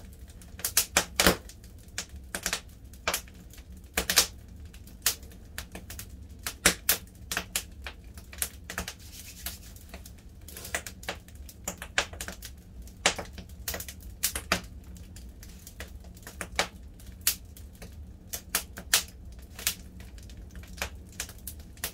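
Wood fire crackling, with irregular sharp pops and snaps, several of them loud, over a low steady background.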